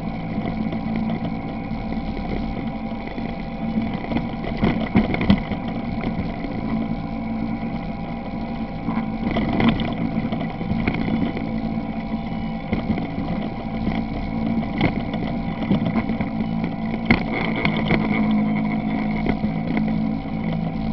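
ATV engine running at a steady speed while riding a rough dirt trail, with occasional sharp knocks and rattles from bumps.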